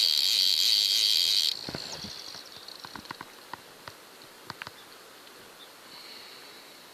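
A loud, steady, high-pitched buzz that cuts off suddenly about a second and a half in, leaving a faint background with a few scattered light ticks.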